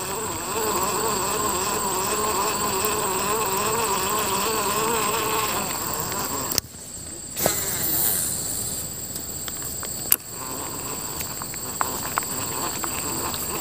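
Insects droning, a steady high hum with a wavering buzz for the first half, like a fly or bee close by. A sharp click comes about midway and another a few seconds later, and light ticking follows near the end.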